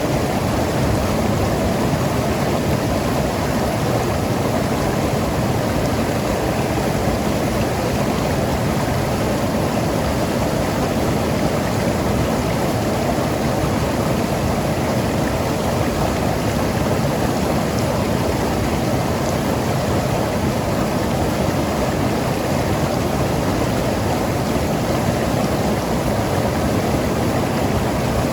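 Mountain river rushing and gurgling over rocks: a steady, even wash of water.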